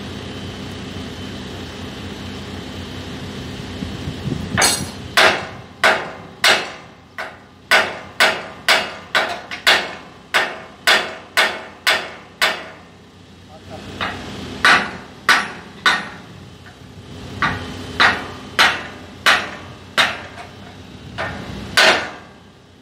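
Hammer striking a steel frame joint with sharp, ringing blows: a run of about two strikes a second, a short pause, then more strikes in small groups.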